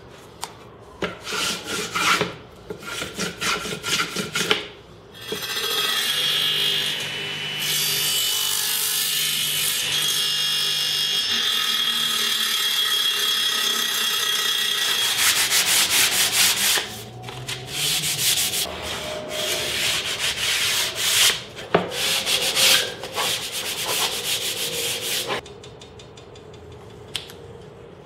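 Wood being rubbed by hand in short repeated strokes, with a long unbroken stretch of rubbing in the middle.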